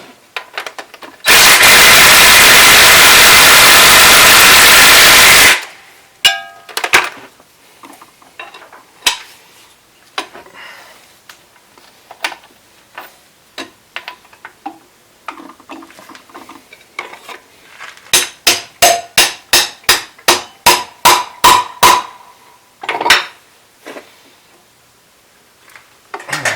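Shop tools at work on an engine teardown. A power tool runs loudly for about four seconds. After it come scattered metal clinks and knocks, then a run of about a dozen sharp metal taps, about three a second.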